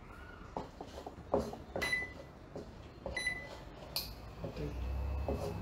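Wooden spatula scraping and knocking in a non-stick wok as garlic is stirred in oil on an induction hob. Two short electronic beeps from the hob's touch controls come about two and three seconds in, and a low hum starts near the end.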